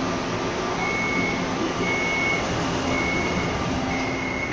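Kaohsiung MRT train's door-closing warning beeps, a high tone sounding about once a second, four times, over the steady hum of the car, as the sliding doors shut.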